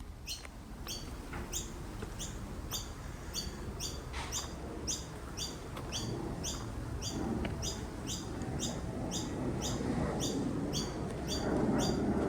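A bird chirping over and over in a steady rhythm, about two or three short, high, downward-sliding chirps a second.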